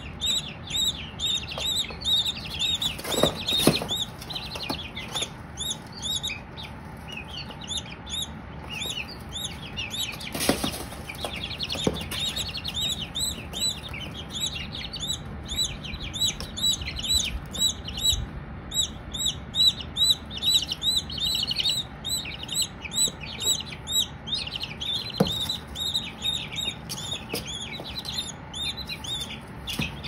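A group of Silkie chicks peeping continuously, many short high peeps overlapping one another. Two brief rustles stand out, about three seconds in and again about ten seconds in.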